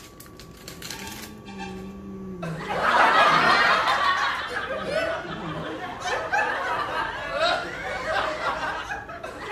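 Plastic biscuit wrapper crinkling for the first couple of seconds, then loud, continuous laughter for the rest.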